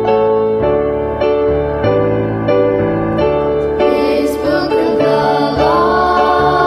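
Piano music playing chords that change about every half second, with a singing voice coming in about four seconds in.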